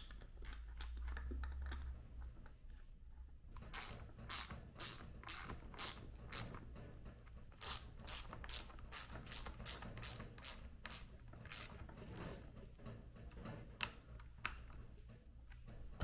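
Hand ratchet wrench clicking in quick runs of two to three clicks a second, starting about four seconds in and stopping near the end.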